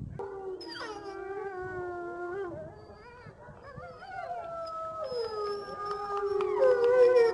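Wolves howling in chorus: one long howl sliding slowly down in pitch, joined about four seconds in by a higher howl and near the end by a third, the chorus growing louder toward the end.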